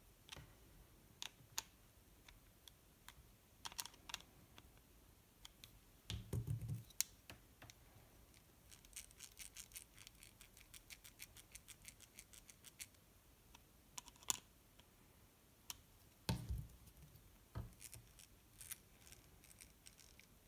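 Faint clicks and taps of a small metal-and-plastic RC crawler axle being handled. First come a screwdriver and parts at the diff cover, then a quick run of fine ticks about midway as the axle is turned by hand to check the ring-and-pinion mesh. Two dull knocks are also heard.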